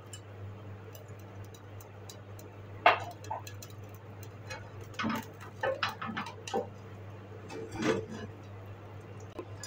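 A few light knocks and clinks from an aluminium cooking pot being gripped by its handle and tilted on the stove, over a steady low hum.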